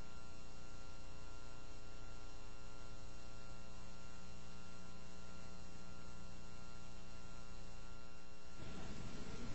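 Steady electrical hum with a stack of evenly spaced overtones and a light hiss. About eight and a half seconds in, it gives way to the start of music.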